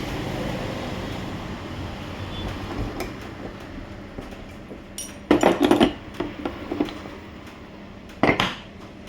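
Metal objects knocking and clinking together: a quick run of several sharp knocks about five seconds in and another short pair near the end, over a steady background noise.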